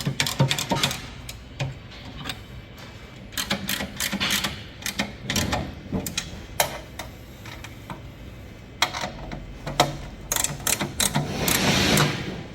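Irregular metallic clanks and taps from work on a wood-burning stove, coming in quick clusters, with a rushing noise swelling near the end.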